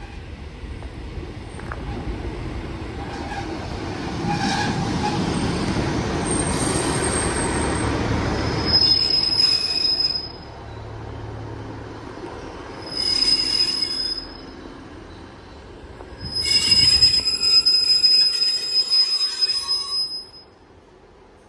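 Diesel multiple unit passenger train running into the platform and braking to a stop. Its rumble builds over the first ten seconds, then high-pitched brake and wheel squeal comes in three spells, the longest and loudest near the end, cutting off suddenly as the train halts.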